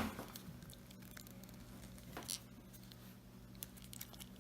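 Faint handling sounds of the clipper cord being worked through the switch hole in the Oster 76 clipper housing: a soft rustle about two seconds in and a few light clicks near the end, over a low steady hum.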